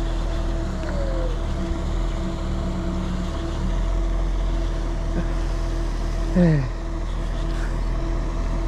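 Steady low machine hum with constant tones running throughout. About six and a half seconds in, a short loud falling-pitched call cuts across it.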